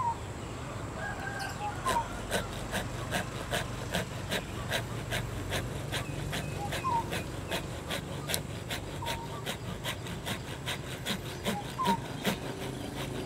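Hand pruning saw cutting into a tamarind bonsai branch with quick, even strokes, about four a second. It starts about two seconds in.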